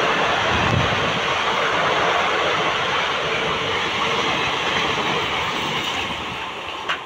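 Indian Railways passenger coaches running past at speed: a loud, steady rush of steel wheels on the rails that eases off slightly over the last two seconds, with one sharp click just before the end.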